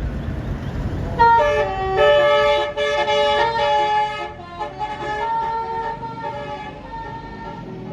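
Bus telolet horn, a Basuri-type multi-trumpet musical horn, playing a stepping melody of several notes. It starts about a second in and is loudest for about three seconds, then goes on fainter to the end. A low rumble is heard before the horn starts.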